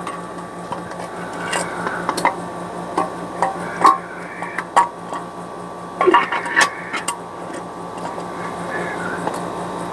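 Metal parts clinking and knocking as a Corvair rear-end differential is assembled by hand, with scattered sharp clicks for the first two-thirds and a steady low hum underneath.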